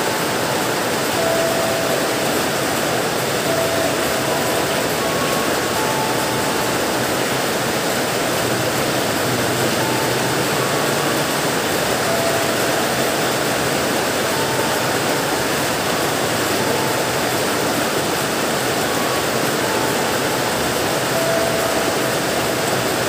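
Heavy rain pouring down steadily, mixed with the low rumble of a CC201 diesel-electric locomotive and its passenger coaches rolling slowly through a station on wet track. Short faint squealing tones come and go.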